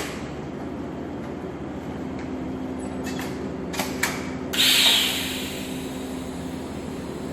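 Steady machine hum in a welding workshop, with a few sharp clicks and then a sudden loud hiss about halfway through that fades over about a second.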